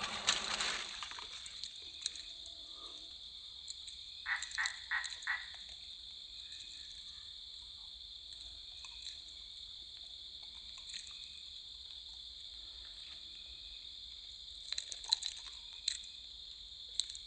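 Swamp night chorus of frogs and insects: a steady high-pitched drone throughout, with a frog croaking four times in quick succession about four seconds in and a few sharp calls or clicks near the end.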